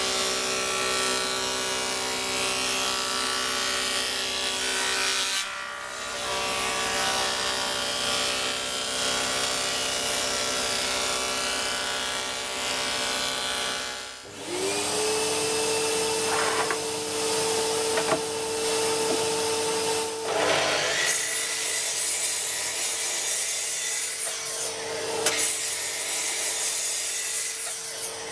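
Woodworking power tool machining oak boards to strip off their old oil finish: a steady motor hum with dense cutting and rubbing noise. About halfway through the sound cuts, and a machine spins up with a short rising whine into a steady hum, with bursts of cutting noise over it.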